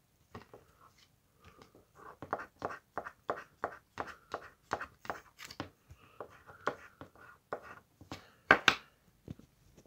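A coin scratching the coating off a scratch-card calendar window, in quick repeated scraping strokes, about three a second, with two louder scrapes near the end.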